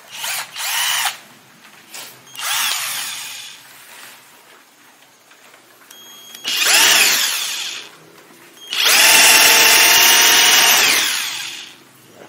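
Electric hand drill boring holes into a wooden board: several short runs, each with a whine that rises as it spins up and falls as it stops, then one longer steady run of about three seconds near the end.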